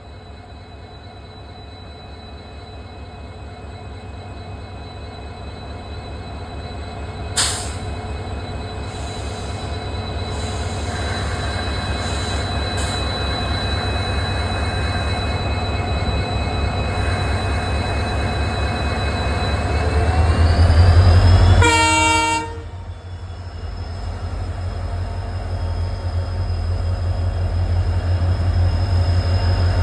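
Indian Railways WDP4B diesel locomotive, its EMD 16-cylinder two-stroke engine throbbing and growing steadily louder. A single sharp click comes about seven seconds in, and a short horn blast sounds about 22 seconds in. After the horn the engine dips briefly, then builds again.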